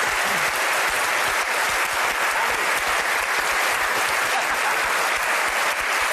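Studio audience applauding: many hands clapping, dense and steady.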